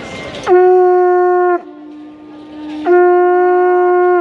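Conch shell trumpet blown in two long, loud blasts, each a steady note. The first drops in pitch as it ends, and a lower, quieter note is held between them. In a limpia cleansing rite the conch's call stands for the element of air.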